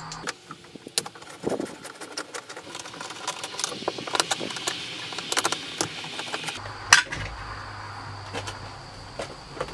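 Irregular small clicks and scrapes of a screwdriver and pick tool working at a car's plastic door panel, prising off trim covers and turning out the Torx screws behind them. There is one sharper click about seven seconds in.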